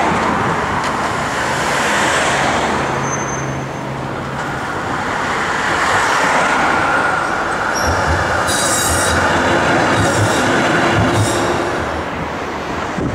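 A street tram's steel wheels running on rails amid road traffic. A squeal is held for a few seconds, then comes a run of clunks and rattling over the track in the second half.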